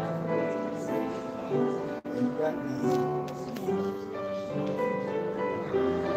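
Grand piano playing held notes that change every second or so, with a momentary dropout in the sound about two seconds in.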